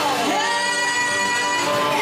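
Live band playing a country-rock song with electric guitar and drums. Near the start a note slides down and back up, then is held.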